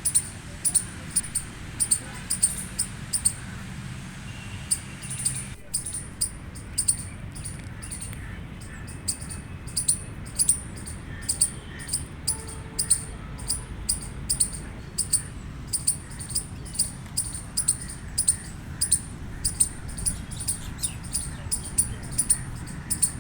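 Gray squirrel chirping: a long run of short, high-pitched chirps, about two a second, with a brief break about five and a half seconds in.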